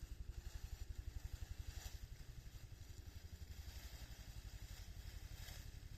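A faint engine running steadily, with a low, even throb.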